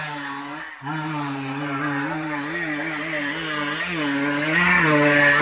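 Trail motorcycle engine revving as it climbs a steep dirt hill, its pitch wavering up and down with the throttle and getting louder toward the end as the bike comes closer.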